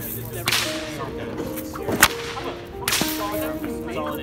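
A whip being swung and cracked: a single sharp crack about two seconds in, with softer swishes before and after it.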